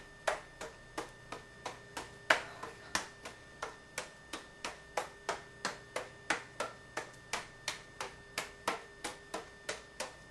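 Juggling pins caught hand to hand in a steady cascade: a sharp smack each time a pin lands in a palm, about three a second, one of them louder a little over two seconds in.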